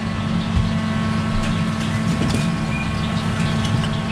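Steady, loud mechanical hum of commercial kitchen equipment, with a few dull knocks of a cleaver cutting a crab on a wooden chopping board.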